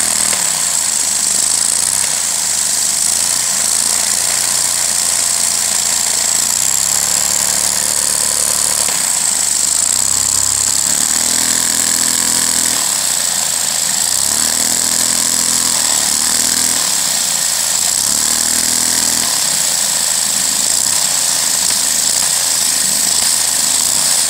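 Lego vacuum engine running, its wheel spinning, with a loud steady rushing hiss. In the second half a lower pitched note swells and falls several times as the engine's speed varies.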